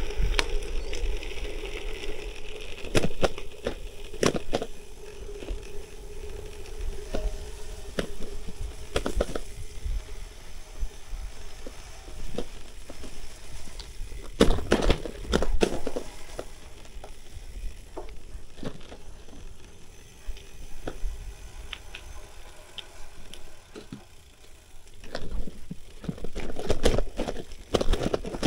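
Gravel bike ridden over muddy dirt singletrack: tyres crackling on the wet trail, with a run of knocks and rattles as the bike goes over bumps, loudest about halfway through and near the end. A steady hum runs through the first several seconds and then fades.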